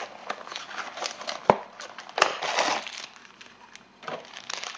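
Blind-box packaging being handled: crinkling and rustling of a foil bag with scattered clicks, a sharp click about a second and a half in and a louder crinkle just after two seconds.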